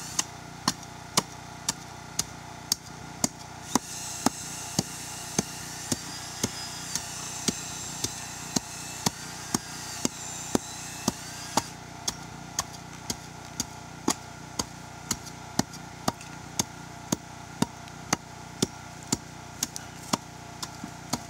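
Steel hand tamper pounding limestone screenings, a sharp thud about twice a second in a steady rhythm, compacting the fill of a stair-step base.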